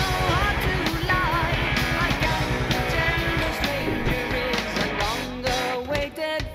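Rock music with electric guitar and a singing voice over a steady beat, dropping away briefly near the end.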